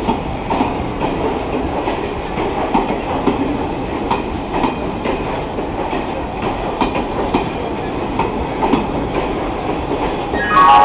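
Sleeper coaches of the Falaknuma Express rolling past along the platform, their wheels clicking over rail joints in an uneven rhythm over a steady rumble. Near the end a loud voice breaks in.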